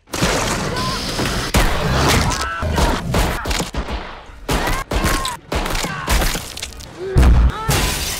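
Rapidly cut horror-film sound effects: a dense string of crashes, thumps and impacts, with glass shattering, each chopped off abruptly by the next, and a few brief high cries among them.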